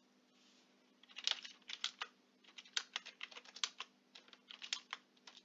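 Typing on a computer keyboard: a run of irregular keystrokes that starts about a second in and goes on until near the end.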